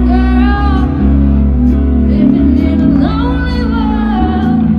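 Music with a singing voice holding long, sliding notes over a heavy bass line and guitar.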